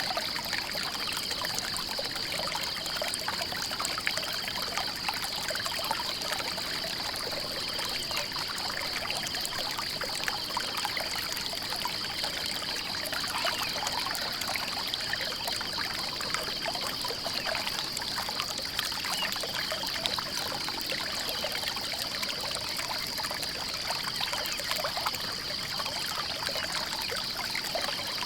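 Flowing water trickling and pouring steadily, with a constant high-pitched pulsing buzz over it.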